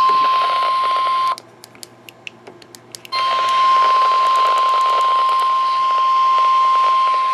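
NOAA Weather Radio's 1050 Hz warning alarm tone, a single steady beep. It cuts out about a second in, leaving nearly two seconds of faint clicks and hiss, then resumes and holds. The tone signals that a warning is about to be read, here a special marine warning.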